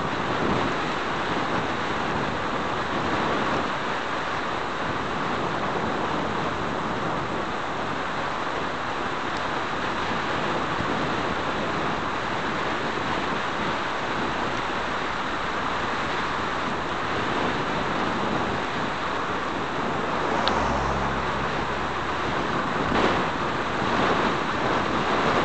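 Steady rush of wind over the microphone of a bicycle coasting fast downhill, with road noise. About twenty seconds in a vehicle passes with a brief low engine hum, and a single short knock follows a little later.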